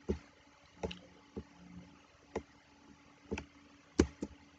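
Scattered light clicks and taps, about seven spread over four seconds, over a faint steady hum.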